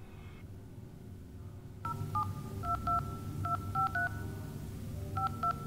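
Touch-tone phone keypad beeps as a number is dialled: about eight short dual-tone beeps in irregular quick succession, starting about two seconds in, with a brief pause before the last two. A low hum runs underneath.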